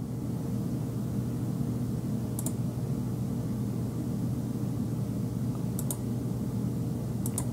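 Computer mouse clicking a few times, once about two and a half seconds in, once near six seconds and a quick double click near the end, over a steady low hum.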